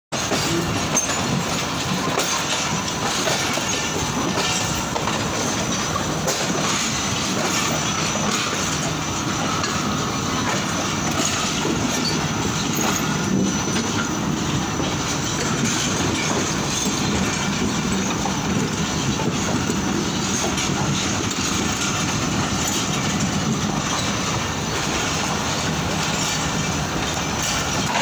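Passenger train rolling through a station: a steady running noise of wheels on the rails that holds even throughout.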